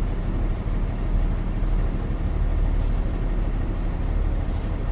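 Steady low rumble of a vehicle engine running as it moves slowly, with road noise.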